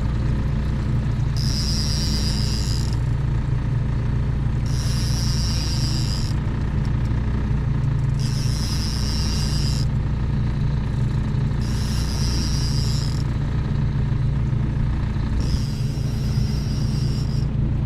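Boat engine running steadily at trolling speed. A high hiss comes and goes over it five times, about every three and a half seconds.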